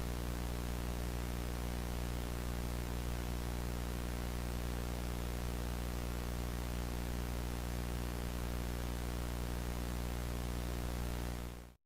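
A steady electronic hum of several low tones under an even hiss of static, unchanging, that cuts off abruptly to dead silence just before the end.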